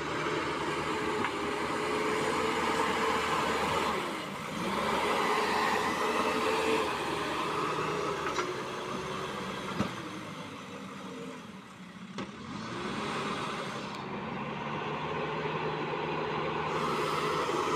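JCB 3DX backhoe loader's diesel engine running under working load, its pitch and level rising and falling, with dips about four seconds in and again about twelve seconds in.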